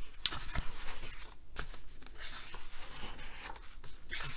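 Pages of a large hardcover art book being turned by hand: paper rustling and sliding, with a few short taps as the pages settle.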